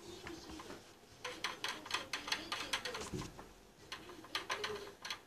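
Faint, irregular light clicks and taps with a soft low thump about three seconds in, from a cat moving about inside a bass drum.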